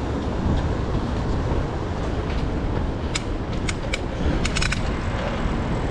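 Mountain bike being ridden, with steady wind and rolling noise on the camera microphone. A run of sharp metallic clicks and rattles comes about three to five seconds in.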